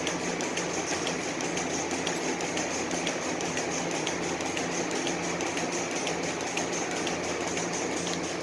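A motor or engine running steadily with a low hum and a light, regular tick about three times a second.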